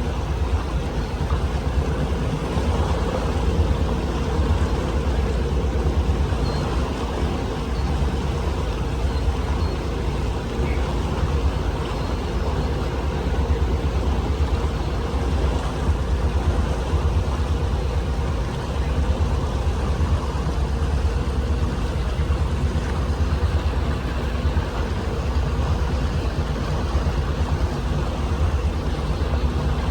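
Boat engine running steadily at cruising speed, a constant low hum with water and wind noise over it.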